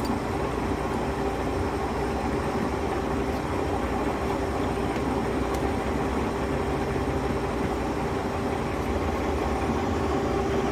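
Mori Seiki 17" x 47" gap bed engine lathe running, its 5 HP motor and geared headstock giving a steady hum with a constant whine.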